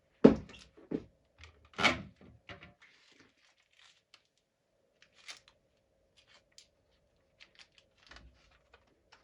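Handling noise as a smoke/CO alarm unit and a voltage meter are handled: a few loud knocks in the first two seconds, then scattered small clicks and rustles. A faint steady tone runs underneath.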